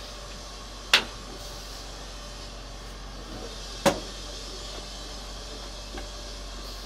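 Two sharp clunks about three seconds apart over steady background noise.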